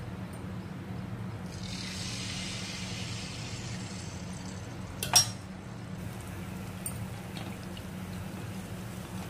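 Malpua batter ladled into hot oil in a kadhai, sizzling with a hiss for about three seconds from a second and a half in. Then one sharp metal clink of a utensil against the pan about five seconds in, with a few faint ticks after.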